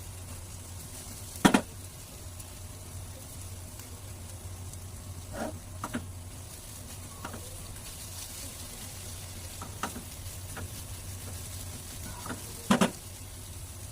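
Scrambled egg with onion frying in a pan with a faint sizzle, stirred with a spatula that knocks against the pan now and then, sharply about a second and a half in and again near the end. A steady low hum runs underneath.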